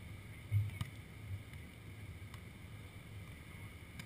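Wind buffeting an outdoor camera's microphone: a gusty low rumble, strongest about half a second in, with a few faint sharp taps.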